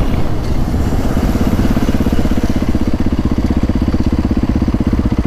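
Dirt bike engine running at steady cruising throttle, its firing pulses an even, fast rhythm, heard from the rider's own bike.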